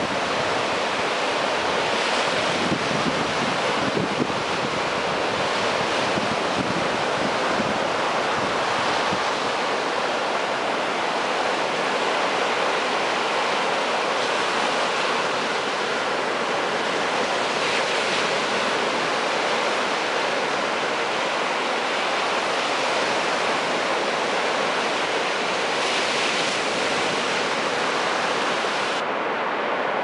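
Sea surf: small waves breaking and washing up a flat sandy beach, a steady rush of water whose hiss swells briefly a few times as a wave runs in.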